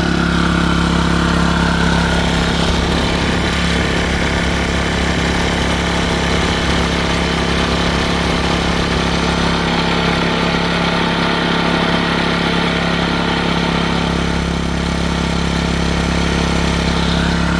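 Westinghouse iGen2550 inverter generator's single-cylinder four-stroke engine running at a steady speed.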